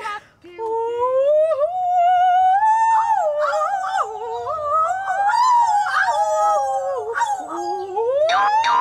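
A woman singing in a high, showy operatic voice: long held notes with a wide wobble that slide upward, loud enough to make a listener clutch his ears.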